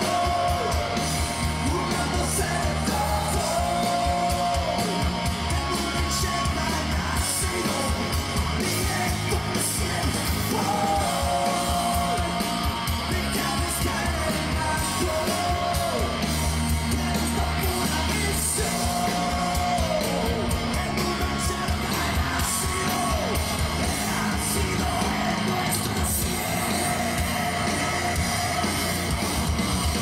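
Live metal band playing at full volume: distorted electric guitars, bass and drum kit under a lead vocal that alternates yelling and singing, with long held sung notes every several seconds.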